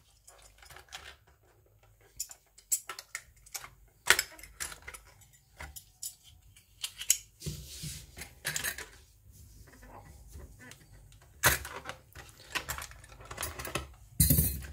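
A package being cut open with a box cutter and handled: irregular clicks, taps and scrapes, with a few louder knocks.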